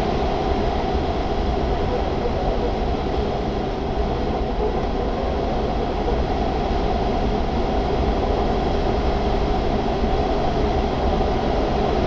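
Steady rush and deep rumble of air streaming over the canopy of a Grob 103 two-seat glider in gliding flight, heard from inside the closed cockpit.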